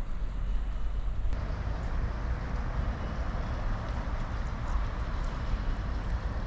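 Steady outdoor rumble and noise picked up by action-camera microphones, heaviest in the low range, with no clear single event.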